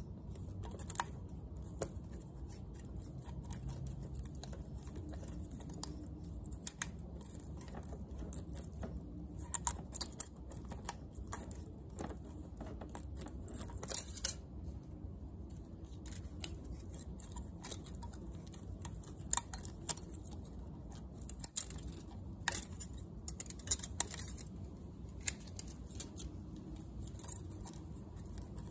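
Faint, scattered small metallic clicks and scrapes of a feeler gauge blade being slid in and out of the intake valve clearance gap on a Kymco K-Pipe 125 single-cylinder engine, checking the 0.08 mm setting for slight drag.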